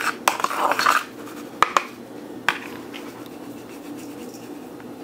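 A spoon stirring and scraping dry ground spices around a small plastic dish, loudest in the first second, followed by a few sharp taps of the spoon against the dish. A faint steady low hum continues underneath.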